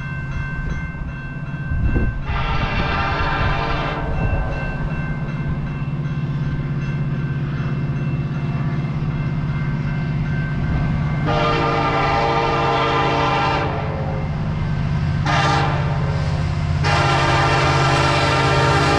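Approaching CN freight train's diesel locomotive sounding its horn for the level crossing: a long blast about two seconds in, another long blast near the middle, then a short one and a long one held to the end, the crossing signal pattern. A steady low engine rumble runs underneath and grows louder as the train nears.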